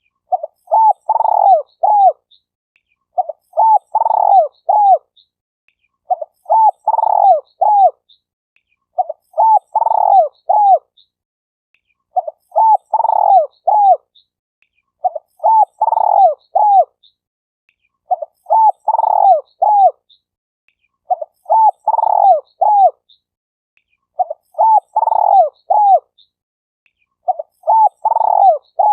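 Spotted dove cooing: a short phrase of three or four low coos, repeated at an even pace about every three seconds, ten times over.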